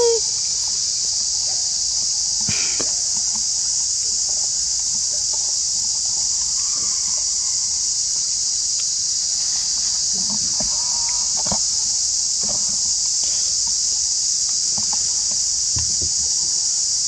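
Steady high-pitched drone of an insect chorus, unbroken throughout, with a few faint scattered rustles and clicks beneath it.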